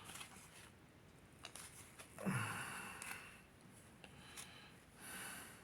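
Faint handling of baseball trading cards: soft swishes and small clicks as cards are slid and flipped through a pack, with a breathy exhale about two seconds in.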